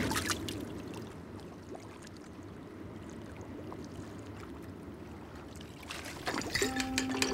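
Gentle water lapping on a calm sea, with a fading splash at the very start. About six seconds in, clicks and knocks of a glass bottle being handled and drunk from.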